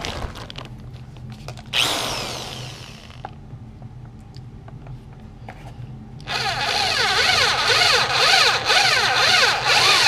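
Power drill drilling the head off a rivet in a seat belt retractor's plastic cover: a short run about two seconds in that winds down, then a longer, louder run from about six seconds in, its pitch rising and falling as the bit bites into the rivet.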